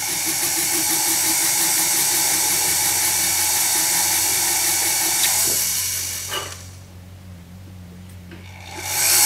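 Rotary handpiece spinning a setting burr, whining steadily as it cuts a seat for a flush-set diamond in a silver cuff. It winds down and stops about six seconds in, then starts up again near the end.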